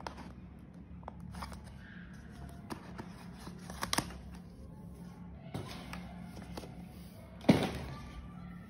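Paper-card packaging rustling and clicking as an Apple Watch sport band is slid out of its paper sleeve, with one louder knock near the end.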